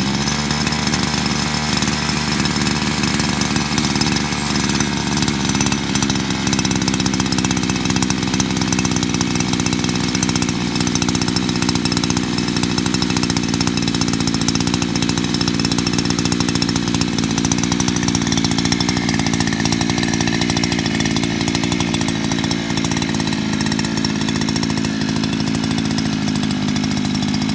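Brand-new 49cc two-stroke scooter engine running steadily at a fast idle just after its first start, on choke. The idle stays high because the throttle cable is too tight to let the throttle return to idle.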